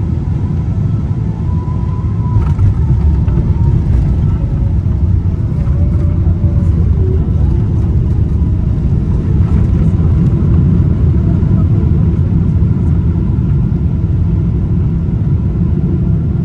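Steady loud rumble of a jet airliner heard from inside the cabin, as its engines and airframe run near the ground at night.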